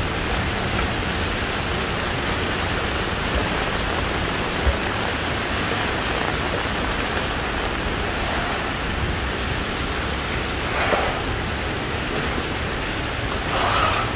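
Heavy rain pouring down, a steady, dense hiss. Two brief louder swishes come in the last few seconds.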